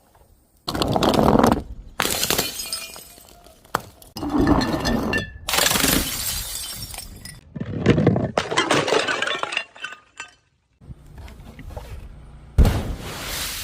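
Glass bottles and jars shattering, one after another: about seven separate smashes every second or two, each sharp onset trailing off over a second or so.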